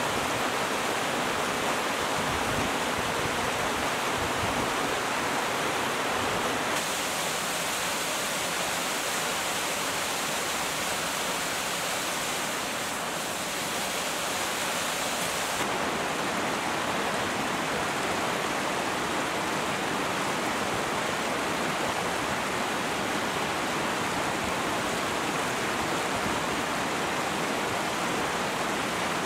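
Mountain stream rushing and splashing over boulders and small cascades, a steady rush of water. For several seconds in the middle it sounds closer and hissier.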